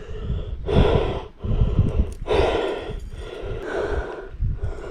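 A man breathing hard, three long breaths about a second and a half apart.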